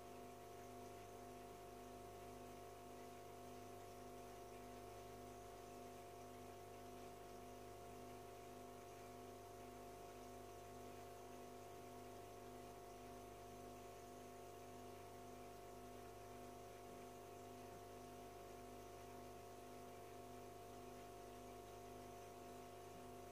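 Aquarium filter pump humming faintly and steadily, with no change throughout.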